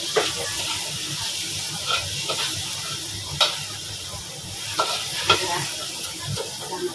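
A chopped red and green chili mixture sizzling in a hot metal wok while a metal spatula stirs and scrapes it, with several sharp clinks of the spatula against the wok.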